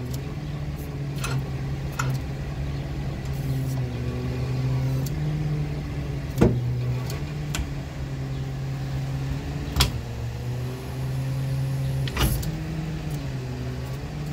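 Hydraulic wheel-lift of a 2011 Ford F-450 tow truck being worked from its control levers: a steady pump drone that shifts in pitch as the lift moves, with three sharp metallic clunks in the second half. The hydraulics are working normally, with no unusual noises.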